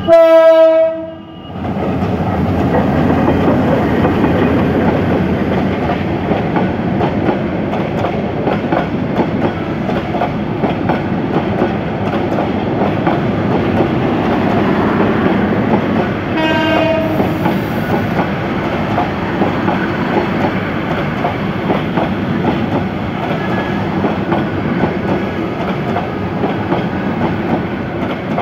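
Diesel locomotive horn blasting loudly for about a second, then the locomotive and a long train of passenger coaches rolling past close by, wheels clattering steadily over the rail joints. A second, fainter horn blast sounds about halfway through.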